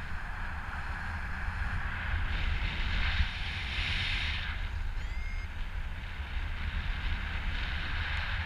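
Airflow of a paraglider in flight rushing over the action camera's microphone: a steady low rumble of wind buffeting with a hiss that swells for a couple of seconds in the first half. A brief faint rising tone comes about five seconds in.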